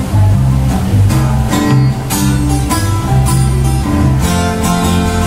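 Acoustic guitars playing an instrumental passage without singing: strummed chords over a low bass line that moves about every half second.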